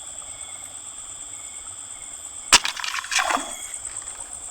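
Night insects, crickets among them, trilling steadily. About two and a half seconds in there is one sharp click, followed by a short rustle.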